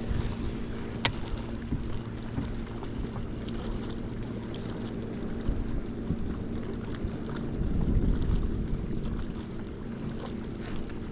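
A boat's motor running steadily with a low hum, with a single sharp click about a second in and a brief low rumble near the end.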